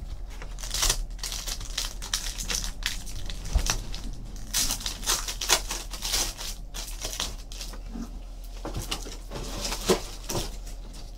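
Foil trading-card pack wrapper crinkling and tearing as a pack is opened, with cards rustling: a quick, irregular string of short crackles.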